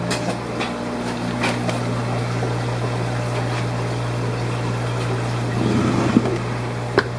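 Steady low mechanical hum with a hiss, typical of a fish room's running pumps and filtration, with a few light clicks of boxes and bags being handled and one sharp click near the end.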